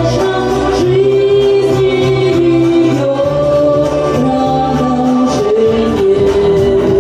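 Pop song performed to a karaoke backing track: a voice sings long, held notes that change pitch every second or two over the steady accompaniment.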